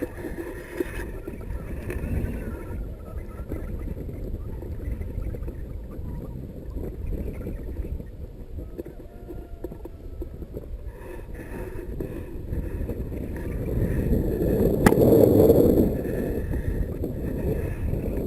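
Wind buffeting the microphone: a low, rushing rumble that swells loudest near the end, with one sharp click in the middle of that swell.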